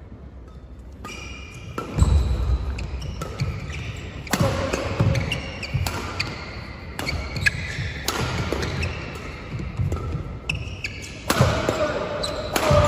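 Badminton rally: a string of sharp smacks as rackets strike the shuttlecock every second or two, some hard, echoing in the hall over a crowd murmur. Voices rise near the end.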